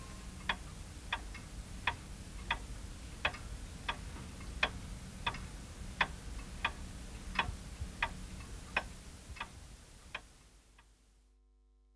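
Pendulum wall clock ticking steadily, about one and a half ticks a second, fading out near the end.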